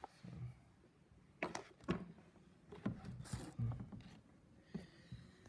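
Scattered clicks and knocks of hand tools against metal shock-absorber parts, with a short hiss about three and a half seconds in.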